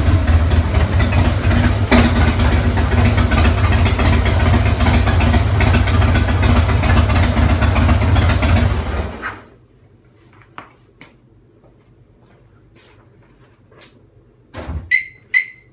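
Harley-Davidson Breakout's V-twin with Bassani exhaust idling loud and steady, with a short blip about two seconds in, then shut off about nine seconds in. After it stops there are a few light knocks and two short, high squeaks near the end.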